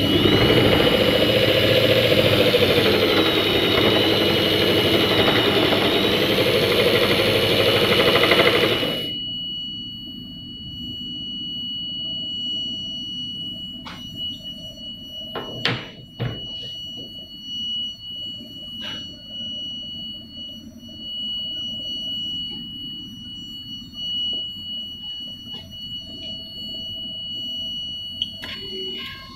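Vibratory stress relief exciter motor clamped to a metal plate, running and shaking the plate with a loud, harsh buzz whose pitch wavers slightly up and down. It cuts off suddenly about nine seconds in. A steady high-pitched whine continues throughout, and a few knocks of handling follow later.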